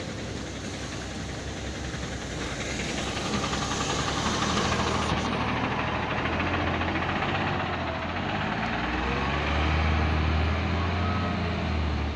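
Golden Dragon XML6125 city bus engine running at a stop, then revving up as the bus pulls away, its note rising and loudest near the end.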